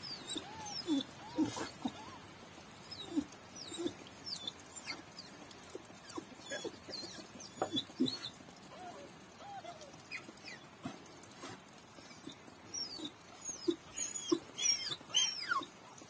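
Scattered short animal calls: low short notes and high, falling chirps, coming thicker near the end.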